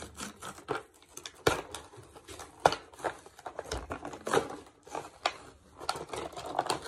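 Plastic packaging crinkling and rustling as hands dig through a cardboard box of toy pieces, with many small sharp clicks and knocks. The two loudest knocks come about a second and a half and near three seconds in.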